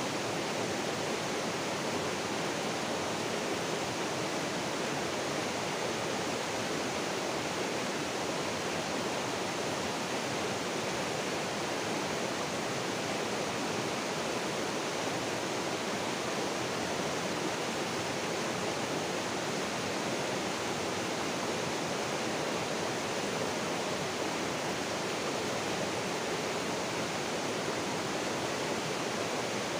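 Fast-flowing river rushing over rocks and small rapids: a steady, even rush of water that does not change.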